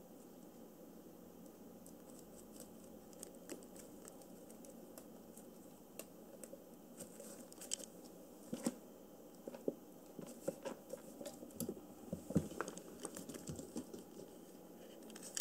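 A kitten's paws rustling and crinkling a paper sheet and tapping against a plastic litter tray: scattered light clicks and rustles that grow busier about halfway through.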